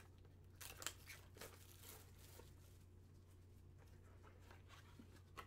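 Faint rustling and scraping of white cardboard card boxes and foil-wrapped trading-card packs handled by gloved hands: a few soft strokes in the first couple of seconds and one more near the end, over a low steady hum.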